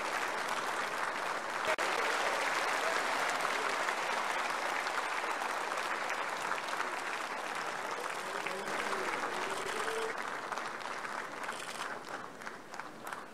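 Large audience applauding steadily, thinning out into scattered separate claps near the end.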